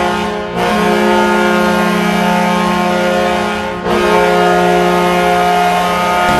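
Florida Panthers NHL goal horn sounding in long, loud, steady blasts, briefly broken about half a second in and again just under four seconds in: the signal of a Panthers goal.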